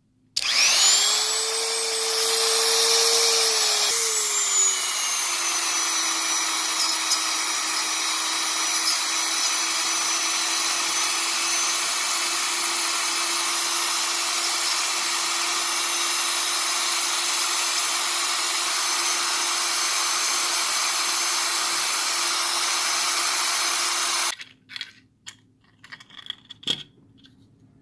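Rotary power tool friction-welding 3D-printed plastic: it spins up with a rising whine, its pitch drops and settles after about five seconds, and it runs steadily before cutting off suddenly. A few light clicks follow.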